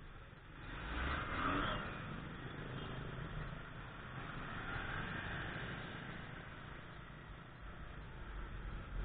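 Engine and street-traffic noise heard while riding a motorcycle in slow, congested traffic: a steady low rumble that swells louder about a second in and again briefly midway.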